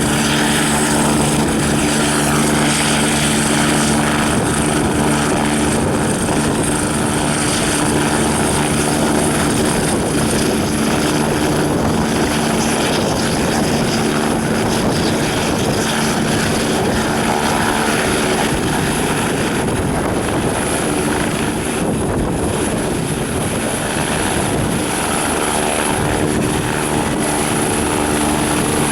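Eurocopter EC-145 helicopter with its twin turboshaft engines and rotor running: a steady turbine whine over the rotor's rumble. The whine fades somewhat through the middle and comes back near the end.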